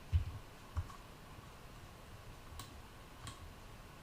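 A handful of sharp, unevenly spaced clicks from a computer mouse and keyboard being used at a desk.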